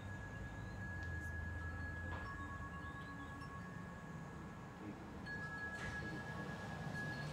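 Tubular wind chime ringing, its tubes sounding long sustained notes, with a new note struck about two seconds in and another about five seconds in, over a low hum.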